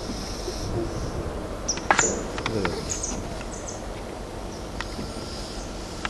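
Insects buzzing steadily in woodland, with a few short high chirps. A cluster of sharp clicks and knocks comes about two seconds in.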